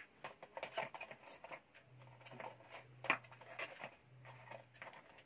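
Paper packaging and a phone box being handled on a glass counter: scattered light rustles and taps, with one sharper click about three seconds in. A faint steady low hum sets in about two seconds in.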